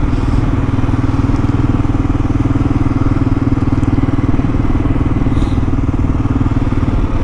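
Kawasaki KLR650's single-cylinder four-stroke engine running steadily while riding, with an even, unchanging pitch and no revving.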